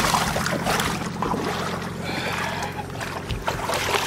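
Lake water sloshing and lapping around a Skeeter bass boat's hull as it floats off its trailer, over a vehicle engine idling steadily.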